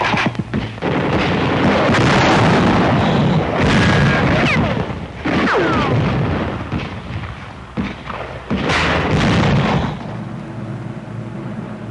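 Battle sound: a dense run of explosions and gunfire, with a few falling whistles among the blasts. It eases to a lower, steady rumble about ten seconds in.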